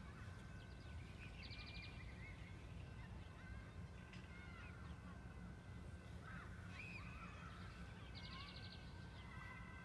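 Faint birdsong: scattered short chirps and whistles, with a quick rattling trill about a second and a half in and again near the end, over a low steady background rumble.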